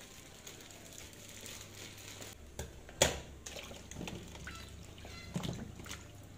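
Hands swishing and rinsing bundles of enoki mushrooms in a metal pot of water, with sloshing and splashing. A few sudden sharp sounds stand out; the loudest comes about three seconds in.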